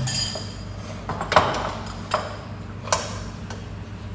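A spoon clinking and knocking against a rice pot: about five sharp clinks, each with a short ring, the loudest about a second and a half in.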